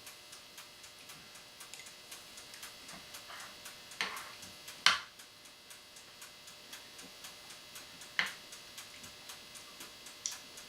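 Faint steady mechanical ticking, about three ticks a second, like a clock or timer, over a low hum. Four sharper clicks stand out, the loudest about five seconds in.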